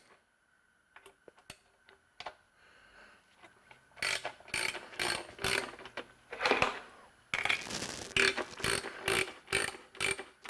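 Hand ratchet wrench clicking as bolts are worked loose during engine disassembly: a few faint clicks at first, then from about four seconds in a run of short ratcheting strokes, about two a second.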